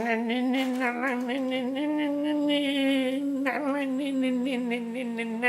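A person humming a tune in long held notes, with a short break about three and a half seconds in.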